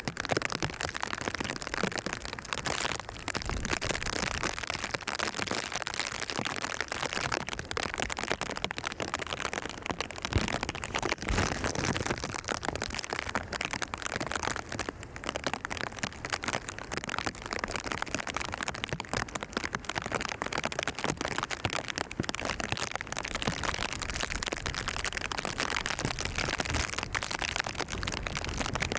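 Rain pattering steadily on a surface: a dense, even crackling hiss.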